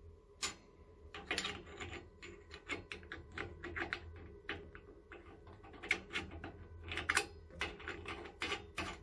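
Brass caps being handled and screwed back onto the service ports of a tankless water heater's isolation valves: a long run of small, irregular metallic clicks and scrapes.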